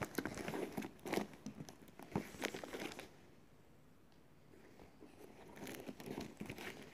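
Plastic and paper parcel packaging crinkling and crackling in the hands: about three seconds of crackling, a lull, then more crinkling near the end, when a plastic mailer bag is handled.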